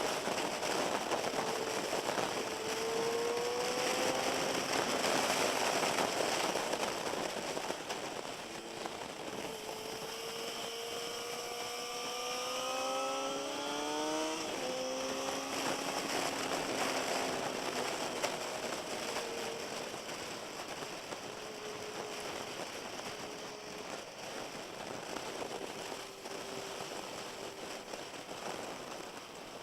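Inline-four sport motorcycle engines accelerating, their pitch climbing as they rev, with a sudden drop at a gear change about 14 seconds in and another climb near the end, over a steady rushing noise.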